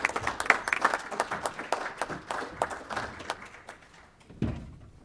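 Audience applauding, a dense patter of claps that dies away about four seconds in, followed by a single low thump.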